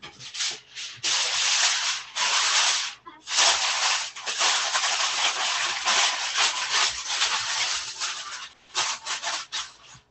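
Aluminum foil crinkling and rustling as a sheet is laid over a baking pan and pressed down around its rim, with a brief pause about three seconds in and lighter, shorter crackles near the end.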